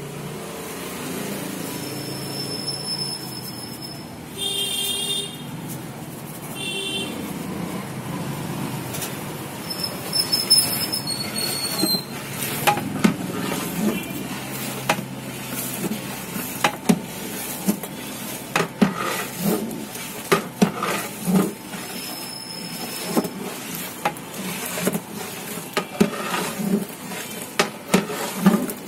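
Long-handled iron ladle stirring serva masala in a large aluminium pot, scraping and knocking against the metal in repeated strokes that come thick and fast in the second half, over a steady hiss. Two short high-pitched tones sound about five and seven seconds in.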